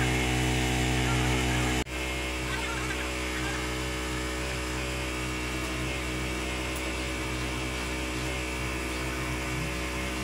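Steady machine hum made of several even tones, cutting out for an instant about two seconds in and then carrying on slightly quieter.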